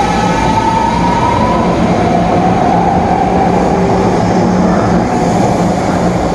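A BART train running through the station with a loud, steady rumble. The traction motors give a whine that rises in pitch over the first couple of seconds, as when the train accelerates, and a second, steadier whine follows.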